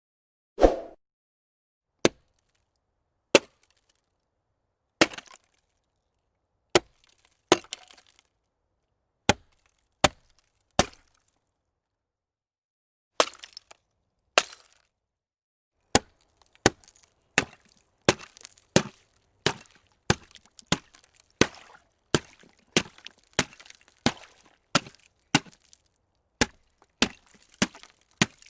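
Ice cracking and breaking in a series of sharp, separate cracks. They come every second or so at first, stop for about two seconds a little before the middle, then come faster, about two a second.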